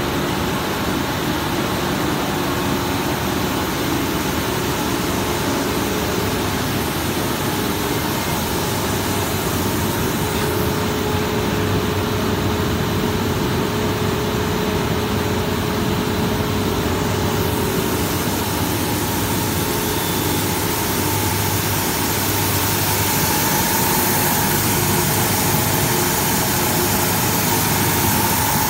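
BOPP plastic film recycling and pelletizing line running: a steady industrial machinery drone with a constant hum in it.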